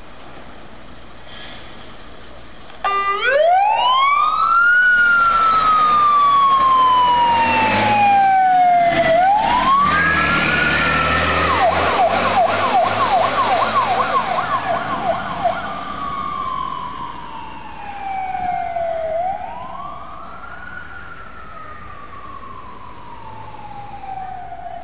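Jelcz 442 heavy fire engine's siren. After about three seconds of engine noise it switches on and slow wails rise and fall, with a fast yelp for a few seconds in the middle. It gets quieter as the truck drives away.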